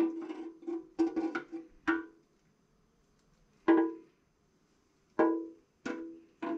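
Background music of sparse plucked string notes in short groups, each note starting sharply and dying away, with a pause of about a second a third of the way in.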